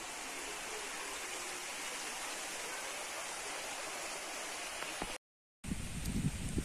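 Mountain stream rushing over stones, a steady hiss that sounds like rain falling. It cuts off about five seconds in and gives way to gusts of wind buffeting the microphone.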